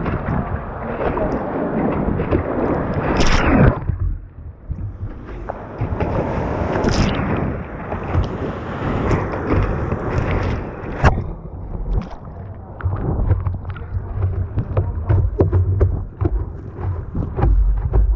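Rushing, splashing whitewater around a slalom kayak running the course, with wind buffeting the microphone. The water noise surges twice in the first half, and from about the middle on it breaks into many short, sharp splashes and knocks.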